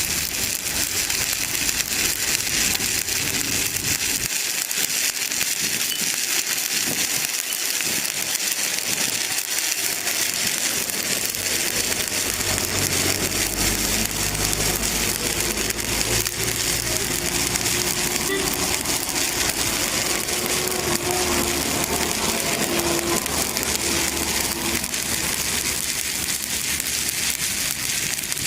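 Shielded metal arc (stick) welding arc crackling steadily and without a break as the electrode burns along a plate weld.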